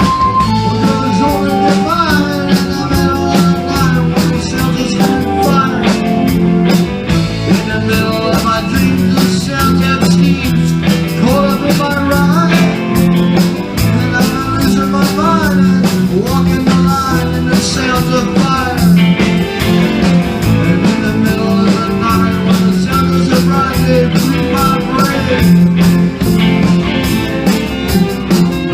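Rock band playing a song: drums keep a steady beat under bass and electric guitar, with a lead line that bends in pitch.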